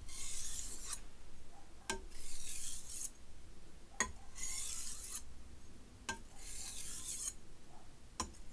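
Chef's knife being stropped on a whetstone, one light stroke at a time on alternating sides: four strokes about two seconds apart, each a short click as the blade meets the stone followed by a hissing scrape about a second long. The light stropping strokes are deburring the edge.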